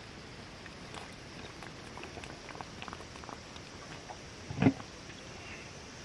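Light, scattered pattering of raindrops, with one louder knock about four and a half seconds in.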